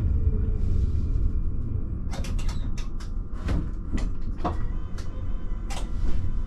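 HTM RandstadRail tram heard from the driver's cab: a steady low rumble, with a run of sharp, irregular clicks and knocks through the middle and latter part.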